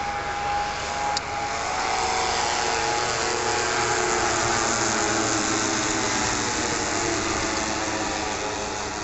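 Piston engines of two four-engined WWII bombers, the Avro Lancaster's Rolls-Royce Merlins and the B-17 Flying Fortress, droning as they fly past. The drone swells to its loudest about four seconds in, then eases off slightly with its pitch sinking a little as they pass.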